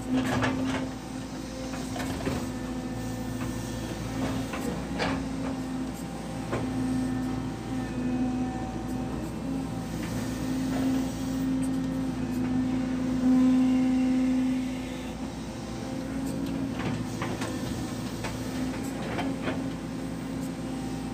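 Excavator engine and hydraulics working under load, heard from inside the operator's cab: a steady hum that swells and eases as the boom and bucket move, with a few scattered knocks.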